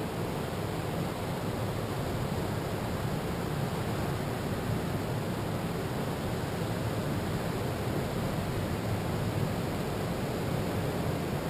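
Steady rush of ocean surf breaking along the beach, blended with wind.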